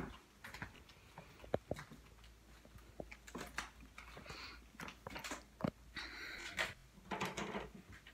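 Quiet footsteps on wooden floorboards: scattered light knocks and clicks, with a few brief rustles.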